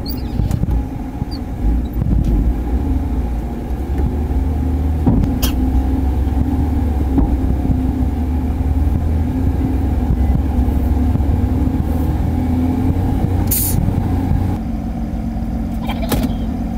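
Mercedes-Benz Axor 2528 dump truck's diesel engine running steadily, heard from inside the cab, with a couple of sharp knocks or rattles from the cab along the way. The engine drone drops somewhat about fifteen seconds in.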